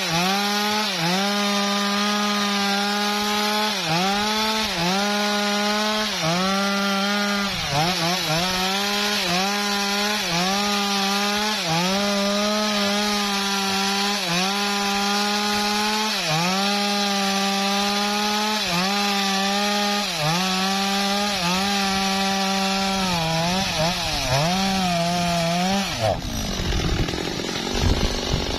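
Stihl two-stroke chainsaw running at full throttle while cutting through a felled teak log, its engine pitch dipping briefly under load every second or two. About 26 seconds in the cut ends and the engine comes off the steady cutting note.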